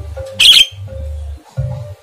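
A caged Javan myna (jalak kebo) gives one loud, harsh squawk about half a second in, a call its keeper takes as a sign the bird is in breeding condition and ready to be paired. Background music plays underneath.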